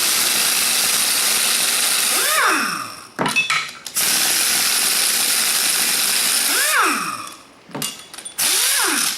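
Power tool run in three long bursts during an engine teardown. Each time the trigger is released it gives a falling whine as it spins down, and there is a brief clatter between the first and second bursts.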